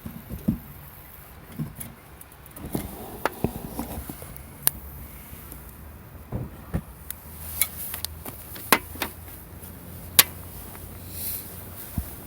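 Scattered sharp clicks and knocks at irregular intervals over a low steady background hum, as of small hard objects being handled.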